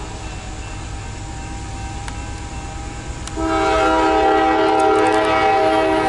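Norfolk Southern freight locomotive's air horn sounding a chord: after a quieter lull with a low rumble underneath, a long blast starts about three seconds in and holds for over two seconds.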